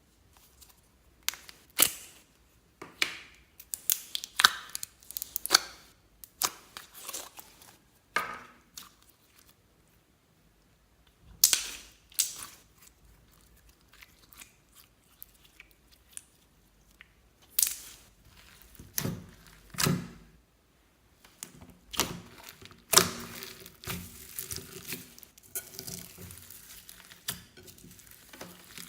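Clear slime being squeezed, stretched and poked by hand, making irregular wet clicks, pops and crackles in short clusters. It pauses briefly near the middle, then crackles more densely near the end.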